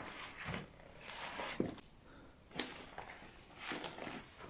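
Faint footsteps on wet ground, a handful of soft, uneven scuffs and steps.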